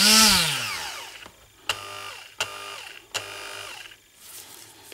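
Braun hand blender motor switched on in short pulses, spinning its blade attachment through a replacement 3D-printed drive adapter. One burst at the start winds up and spins down over about a second, then three shorter bursts follow about a second apart.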